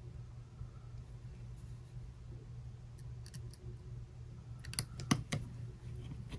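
Small hard clicks and taps from handling an opened iPhone 7 and small repair tools: a few faint ticks, then a quick cluster of sharper clicks about five seconds in, over a steady low hum.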